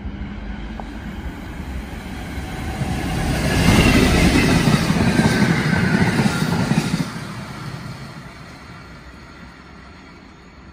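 Freightliner Class 66 diesel locomotive, with its two-stroke V12 engine, hauling a train of empty container flat wagons through the station. The engine and wheel noise builds, is loudest from about four to seven seconds in, then fades as the wagons roll away.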